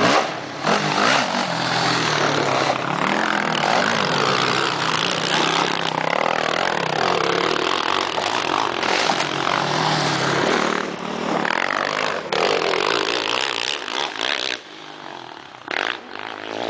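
Sport quad (ATV) engines revving hard, the pitch rising and falling with the throttle as the quads ride over a dirt jump; the sound drops off sharply near the end, with one short revving burst after.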